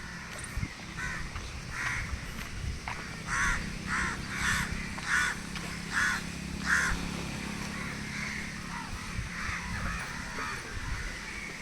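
Crows cawing outdoors: a run of short, repeated caws bunched in the middle of the stretch, over a low steady background hum.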